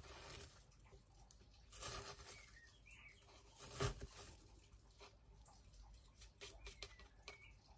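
Very quiet handling sounds: faint scattered clicks and rustles of fingers pushing small baby's toes succulent cuttings into gritty potting soil, with a slightly louder scrape about two seconds in and again near four seconds. A couple of faint high chirps are heard along with them.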